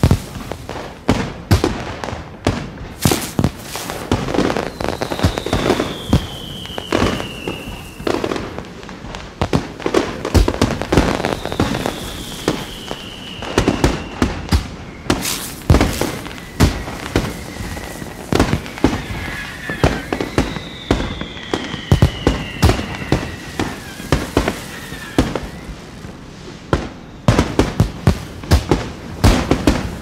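Fireworks display: a continuous rapid run of bangs and crackling from aerial shells bursting, with three whistles that fall in pitch.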